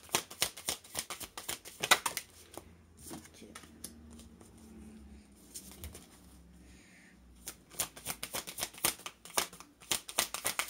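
A deck of oracle cards being shuffled by hand: quick runs of card-edge flicks and slaps for about two and a half seconds, a quieter stretch, then shuffling again from about seven and a half seconds in.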